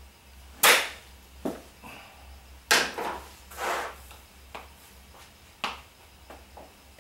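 Golf club striking a ball off a practice hitting mat with a sharp crack under a second in, followed by more sharp knocks and clicks, the loudest about two seconds after the strike.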